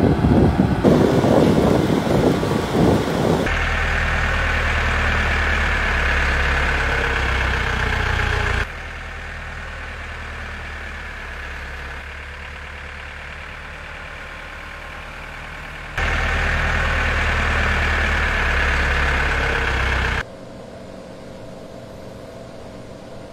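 Tractor engines and pumpkin harvesting machinery running steadily, in several clips that cut abruptly from one to the next, with louder and quieter stretches.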